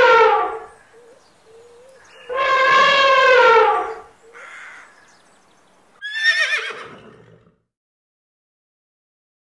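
Horse-like whinnying: a long call ending about half a second in, a second long call from about two to four seconds, and a shorter call falling in pitch about six seconds in.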